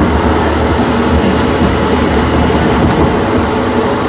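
A steady low rumble that eases off near the end.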